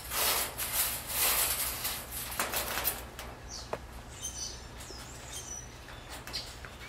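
A monkey hauling a steel food cup up on its chain over wire mesh: a dense burst of metallic rattling and scraping for about the first three seconds, then a few short, high chirps.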